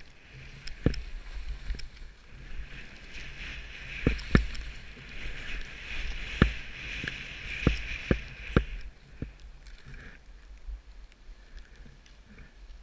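Skis hissing and scraping over packed, tracked-up snow on a downhill run, the swishing growing louder through the middle, with a low rumble underneath and several sharp knocks as the skis hit bumps.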